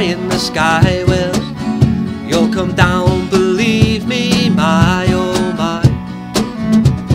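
Acoustic band playing live: strummed acoustic guitars and bass guitar under a bowed cello, with a wavering, sustained melody line over steady strumming.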